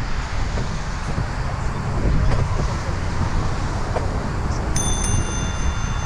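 Wind and riding rumble on a helmet-mounted camera's microphone as a bicycle rolls along. Near the end a bicycle bell is struck once and keeps ringing.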